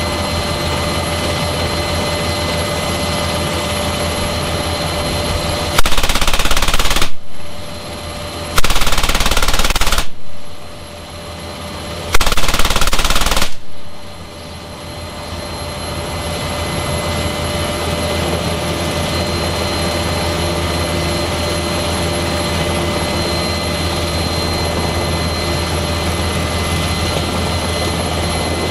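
Three bursts, each about a second and a half long, from an M3M 12.7 mm (.50-calibre) heavy machine gun fired from the door of an NH90 helicopter, between about six and fourteen seconds in. Heard from inside the cabin over the helicopter's steady turbine and rotor noise, which runs throughout.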